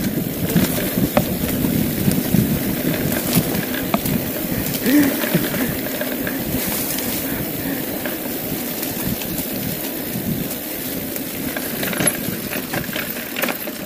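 Mountain bike riding fast down a dirt singletrack: tyres rolling over dirt and the bike rattling, with scattered sharp clicks and knocks over a steady rush of wind on the helmet-camera microphone.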